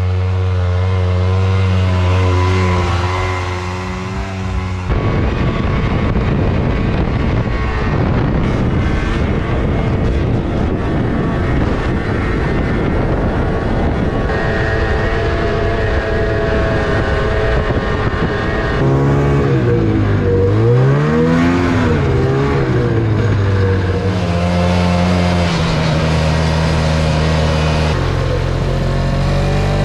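Two-stroke snowmobile engines running under way, with track and wind noise. The pitch sweeps up and down with the throttle about two-thirds of the way in and again near the end.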